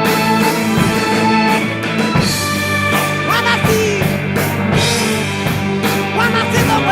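Rock music with a drum kit and guitars, an instrumental passage without singing.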